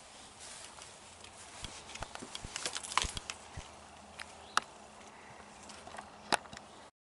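Footsteps of a person walking on rough outdoor ground, heard as scattered crunches and sharp clicks, with a small flurry about three seconds in.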